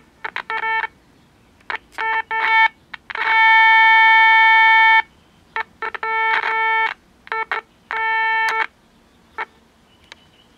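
Modulation test tone from a signal generator playing through a 1967 Zenith Royal 51 transistor radio's speaker, a steady buzzy tone that cuts in and out in many short stutters with clicks, held for about two seconds in the middle. It shows the injected 10.7 MHz FM IF signal is getting through the radio.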